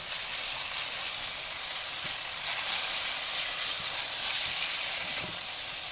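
Shredded potato and bell peppers sizzling in hot oil in a wok as they are stir-fried: a steady, even sizzling hiss that swells a little in the middle.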